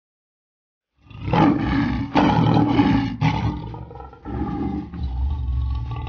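Lion roaring: several long, rough roars with short breaks between them, starting about a second in.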